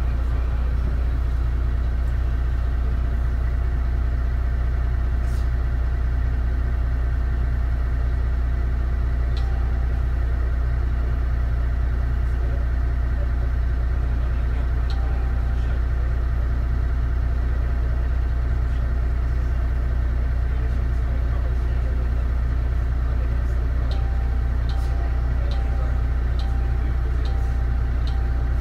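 Diesel engine of a DAF DB250 double-decker bus idling steadily with a deep, constant hum. Near the end a regular ticking with short beeps starts, roughly one every three-quarters of a second.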